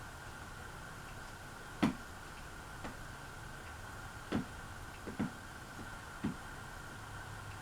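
Hampton Bay Quick Connect ceiling fan running in reverse, with a steady motor hum and sharp ticks about once a second at uneven spacing.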